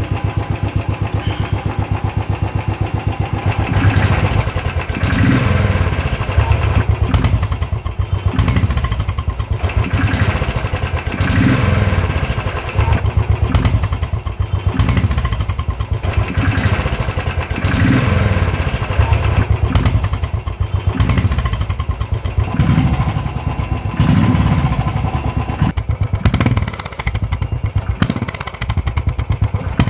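Royal Enfield Thunderbird 500's single-cylinder engine through a Royal Enfield off-road silencer, idling evenly and then blipped in a string of short revs about every two to three seconds from about four seconds in. The note is not too loud but has a good amount of bass.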